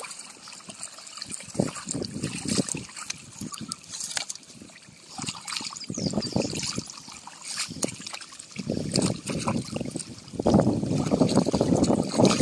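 Water flowing and splashing in a shallow drain channel as clumps of weeds and mud are pulled from it by hand and with a rake, in irregular sloshing bursts that grow louder near the end.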